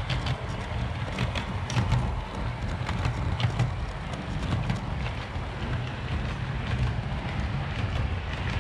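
00 gauge model train running along the track, heard from a camera riding on it: a steady low rumble with irregular sharp clicks and rattles from the wheels on the rails.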